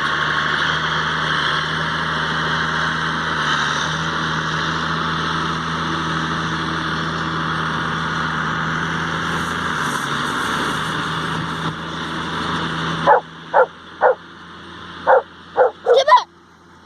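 A tractor engine running steadily, cut off abruptly about thirteen seconds in. Then a dog barks in short high yips, about seven in quick succession over three seconds, each falling in pitch.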